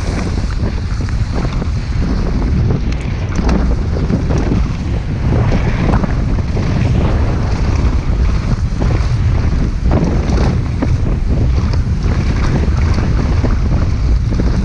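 Strong wind rumble on a GoPro microphone as a mountain bike rides fast down a dirt trail, with frequent short clatters and knocks from the tyres and bike over bumps.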